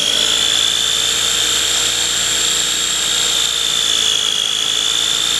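Motor of a KitchenAid food chopper running with a steady high whine as it churns heavy whipping cream, which is separating into clumps of butter.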